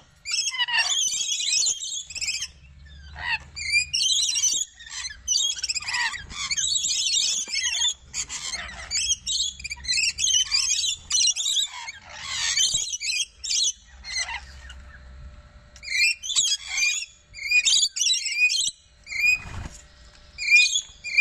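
A flock of rainbow lorikeets calling noisily: many short, high-pitched calls overlap, broken by a few brief pauses.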